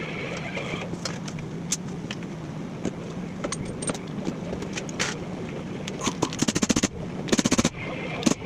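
Mechanic's hand tools at work: scattered sharp clicks and knocks, then two short runs of rapid clicking about a second apart, over a steady low hum.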